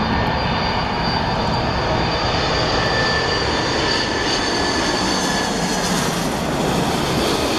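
Boeing 747-400 jet airliner's four turbofan engines running loud and steady: a dense jet roar with a thin high whine on top.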